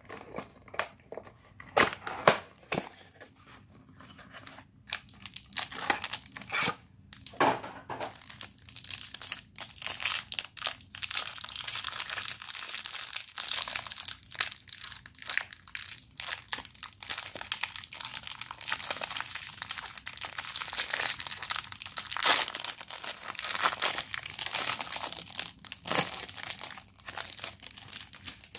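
Clear cellophane wrap around a stack of trading cards being torn open and crumpled by hand, a long stretch of dense crinkling. Several sharp snaps and crackles come over the first few seconds before the crinkling settles in.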